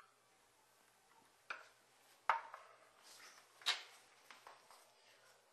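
Light knocks and clinks of coffee-making ware being handled: three main strikes, the loudest a little past two seconds in, with a few smaller taps after them.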